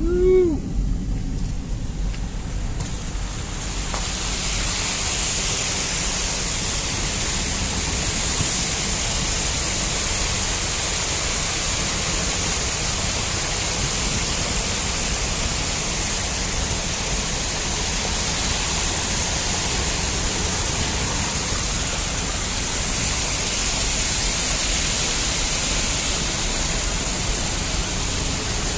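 Steady rushing of water spilling over the edge of a flooded dam road and cascading down the spillway's stepped face. It sets in about three seconds in, after a brief low vehicle rumble.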